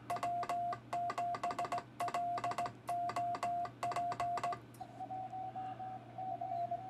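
Morse code sent by hand on a Kent key: the transceiver's sidetone beeps out dots and dashes, each one started with the sharp mechanical click of the key. About four and a half seconds in, the hand keying stops and a slightly higher-pitched Morse signal from another station is heard, without key clicks.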